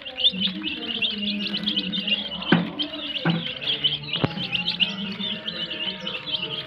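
A brood of young chicks peeping continuously, many short high cheeps overlapping, with a couple of sharp clicks in the middle.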